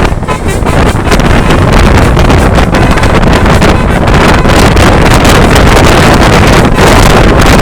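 Loud wind buffeting on the microphone over the steady rumble of a moving road vehicle.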